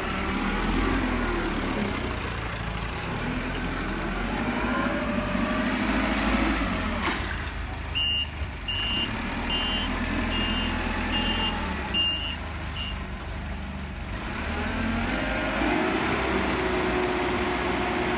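Cat P6000 forklift running, its engine pitch rising and falling as it is worked. A reversing alarm beeps about seven times, a little under a second apart, near the middle.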